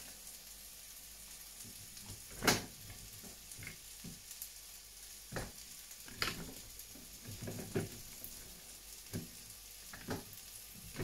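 Beef and vegetable stir-fry sizzling in a metal wok on an electric hob. A metal spatula scrapes and taps against the pan at irregular intervals, loudest about two and a half seconds in.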